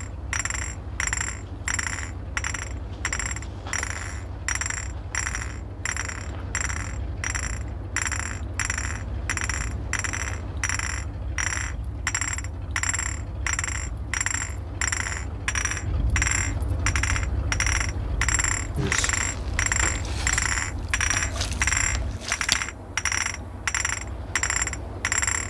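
Empty glass bottles held on the fingers of one hand clinked together in a steady rhythm, about two clinks a second, each a bright ringing chink. A constant low rumble lies beneath.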